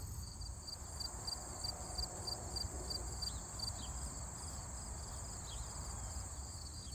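Crickets chirping steadily, about two chirps a second, over a continuous high insect trill and a low rumble. They sing in the daytime because of the darkness of a near-total solar eclipse.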